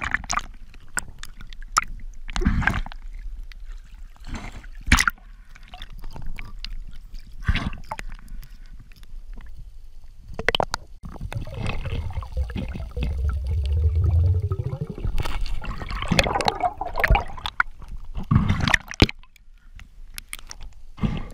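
Sea water splashing and gurgling around a camera dipping in and out of the surface, with irregular splashes and a louder churning stretch about halfway through.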